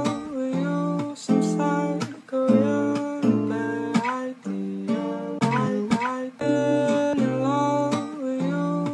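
Background music: acoustic guitar playing plucked chords that change every second or so.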